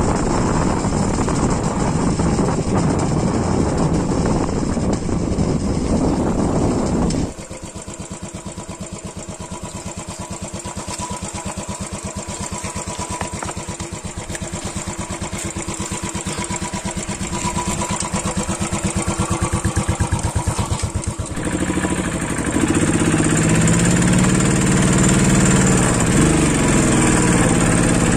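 Royal Enfield 500cc single-cylinder motorcycle on a rough off-road track. For the first seven seconds or so there is a steady rush of wind noise while riding. Then, after a sudden change, the engine is heard close up, running with an even, rapid beat as it picks its way over wet rocks, and in the last several seconds it gets louder and rougher as it pulls.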